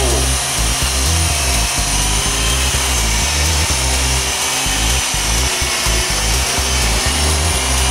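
Walkera CH-46 tandem-rotor RC electric helicopter hovering: a steady whine from its four 370-size electric motors over the whir of its two sets of rotor blades. The rotor downwash buffets the microphone with a gusty low rumble.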